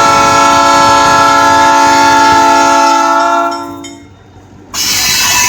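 Locomotive air horn sounding one long, steady chord that fades out a few seconds in. After a short lull, the loud rushing noise of the train rolling by starts near the end.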